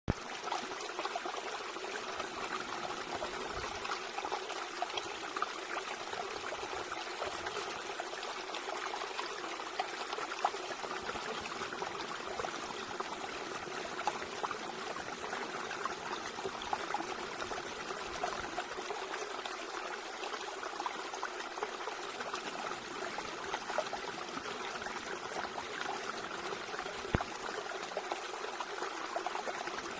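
Water trickling steadily, with many small splashes and drips scattered through the flow.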